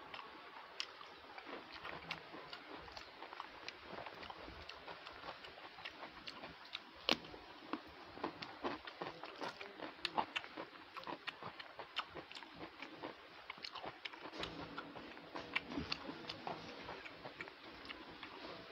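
Close-miked eating sounds of a person eating rice by hand: irregular wet chewing clicks and lip smacks, with the soft rustle of fingers mixing rice on a plate. One sharper click stands out about seven seconds in.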